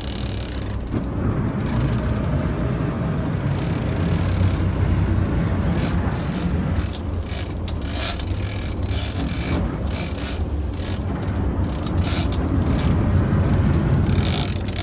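Sportfishing boat's engine running steadily with a deep hum, with irregular rattles and clicks throughout.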